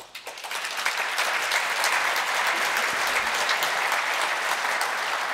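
Audience applauding, the clapping building up over the first second and then holding steady.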